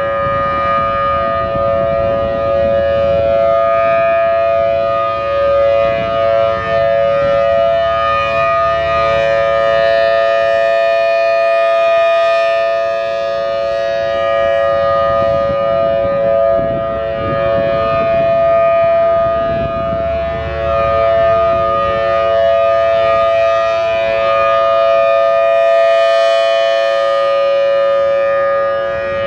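Federal Signal Thunderbolt 1000T rotating-horn civil defense siren sounding its steady Alert signal, a loud continuous chord of two close pitches that swells and dips slightly as the horn turns.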